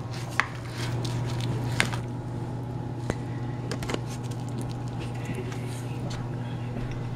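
Red plastic spatula cutting into a cheese-topped casserole in a foil pan and lifting a slice onto a plate: a few soft scrapes and clicks over a steady low hum.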